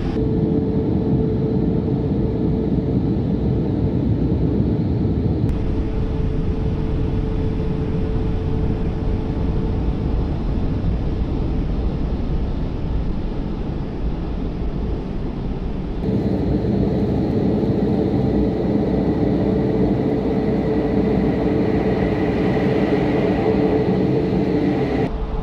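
Automatic car wash dryer blowers running, a loud steady rush of air with a hum, heard from inside the car. The sound shifts slightly twice, about five and sixteen seconds in.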